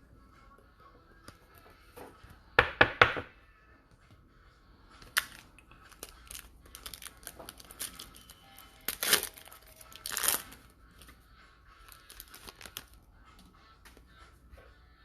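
Foil trading-card pack being opened and its cards handled: a quick cluster of three sharp crackles about two and a half seconds in, then more crinkles and light clicks, with louder crackles around the middle.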